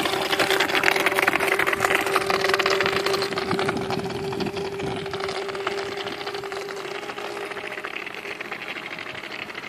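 Small motor of an RC model boat running at a steady speed, a fixed hum with a fast buzz over it, growing steadily fainter.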